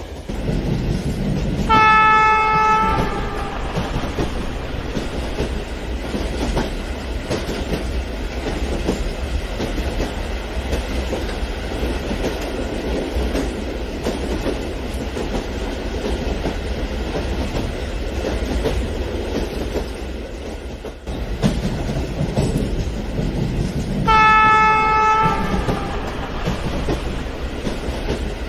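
Model train running along its track with a steady rumble and wheel clatter. A single-pitch horn sounds twice, each blast about a second and a half long, once near the start and again about 24 seconds in.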